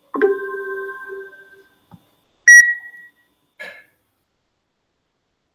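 A ringing chime with several pitches that fades over about a second and a half, then a short, loud, high electronic beep about two and a half seconds in, followed by a brief soft rustle.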